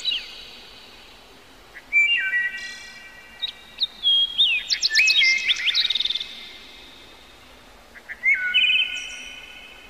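Birdsong: bursts of high chirps and whistled phrases about a second or two long, coming every few seconds with quieter gaps between.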